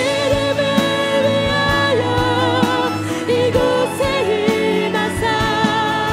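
Live contemporary worship music: a praise band playing under a singing voice that holds long notes, over a steady beat.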